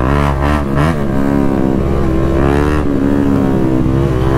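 Bajaj Pulsar RS200's single-cylinder engine running through a loud aftermarket exhaust while riding. The throttle rises and falls in the first second, then the note holds steadier.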